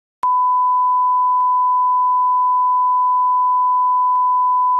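Steady 1 kHz line-up test tone, the reference tone that goes with colour bars on a video leader. It is a single pure, unwavering tone that begins abruptly just after the start.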